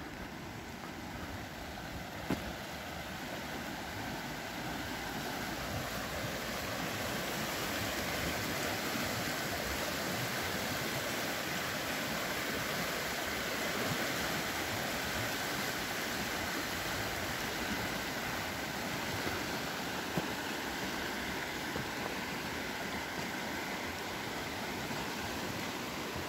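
A shallow mountain river rushing over a stony bed: a steady rush of water that grows louder over the first several seconds and then holds.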